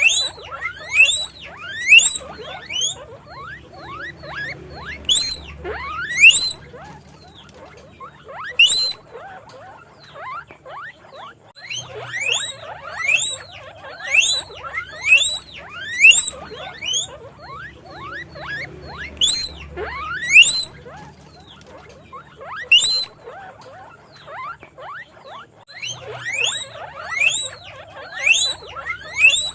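Guinea pig wheeking: a run of loud, rising whistled squeals, about one or two a second, broken by two short pauses.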